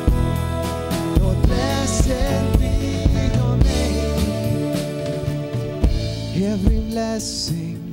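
Live worship band playing a song, with electric guitar, bass guitar and acoustic guitar over a steady drum beat.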